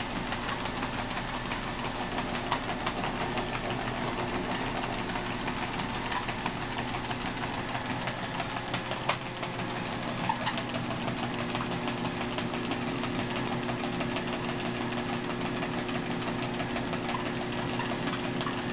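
Electric treadmill running with its motor humming steadily and the belt turning, over quick light taps of a small dog's paws on the moving belt. The motor hum becomes a steadier, clearer tone about halfway through.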